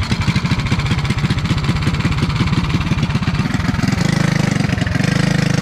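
Go-kart engine running, uneven at first and settling into a steadier, even note about four seconds in.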